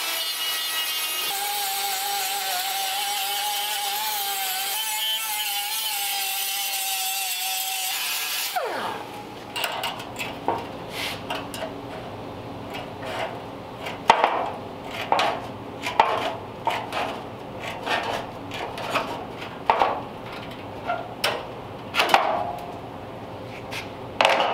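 A 2-inch air-powered mini sander running steadily on steel weld seams with a wavering whine, then winding down about eight and a half seconds in. After that, a string of short sharp cuts, roughly one a second, as hand snips trim the sheet-steel flange.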